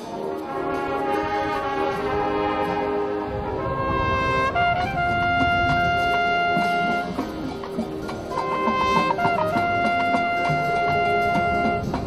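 Marching band playing a brass-led passage. Full ensemble chords give way, about four seconds in, to long held high brass chords, broken by a short moving figure and then held again near the end.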